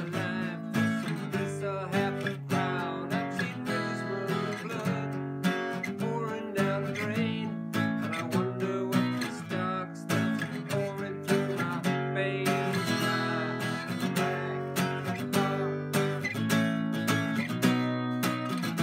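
Acoustic guitar strummed in a steady rhythm, with full chords ringing between the strokes and a change from an A chord to a B chord near the end.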